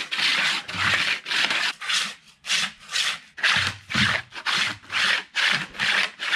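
Plastic-bottomed sliding discs of the PRAEP ProPilot kit scraping back and forth over stone paving under a person's feet as the legs alternate in a plank-position leg drill, about two scrapes a second.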